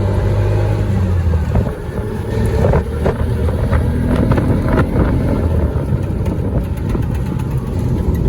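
A motor vehicle's engine running steadily with road noise, heard while riding, with a few knocks and rattles about midway.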